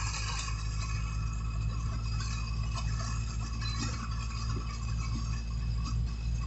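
Inside a vehicle's cabin while it drives in the rain: a steady engine hum and road noise, with light rattles and faint ticking of rain on the windshield.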